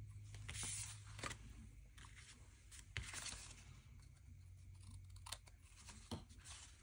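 Scissors snipping through a kraft-paper envelope with a paper doily glued on, a handful of quiet cuts with some paper rustling between them.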